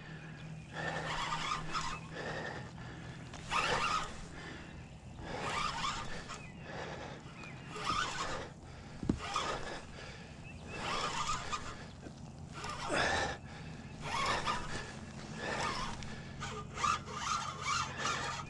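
Fishing reel's drag slipping and buzzing in repeated rasping bursts, about one every two seconds, as a hooked striped bass pulls line off against a hard-bent rod.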